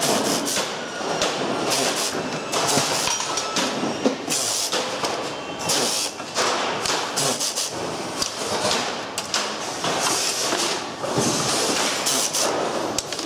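Plastic decorative trim being pried and pulled off a pachinko machine's metal frame by hand: an irregular run of cracking, clicking and clattering knocks.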